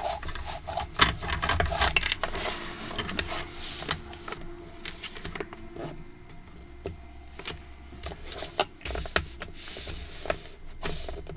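Paper being handled on a paper trimmer's base: a folded paper bag slid, pressed and lined up, with rustling and scattered small clicks and knocks.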